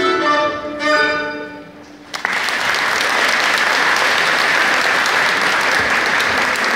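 Violin and piano play the closing notes of a piece, with a last chord struck about a second in and left to ring out. Then an audience breaks into steady applause.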